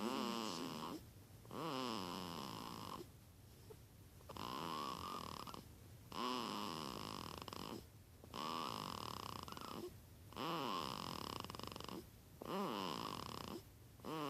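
A sleeping baby snoring in a steady rhythm, about seven snores roughly two seconds apart. Each snore is a buzzing sound that slides up and down in pitch, with a thin whistle above it.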